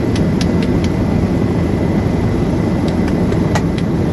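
Helicopter cabin noise: the steady, heavy drone of rotor and turbine. About seven faint sharp cracks sound over it, in two clusters, the clearest about three and a half seconds in.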